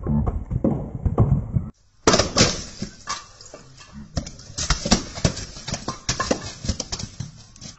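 A rapid, irregular series of sharp knocks and clatter from blocks of ice being broken and handled. The sound drops out briefly about two seconds in, then the knocking goes on.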